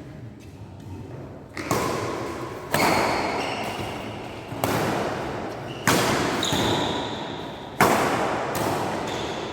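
Badminton rackets hitting a shuttlecock in a rally: five sharp hits one to two seconds apart, each echoing in a large hall.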